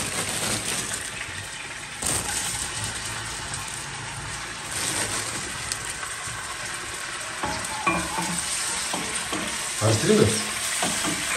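Chopped vegetables sizzling steadily as they fry in oil in a stainless-steel pan, stirred with a wooden spoon. A few knocks and scrapes of the spoon against the pan come near the end.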